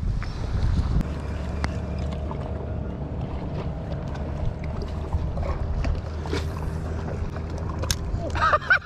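Steady low wind rumble on the microphone, with a few faint clicks over it.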